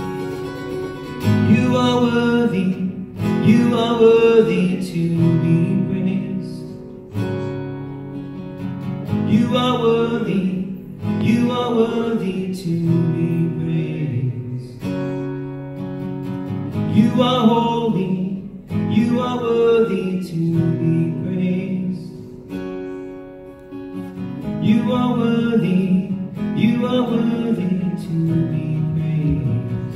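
Acoustic guitar strummed while a man sings into a microphone, in phrases of a few seconds with short breaks between lines.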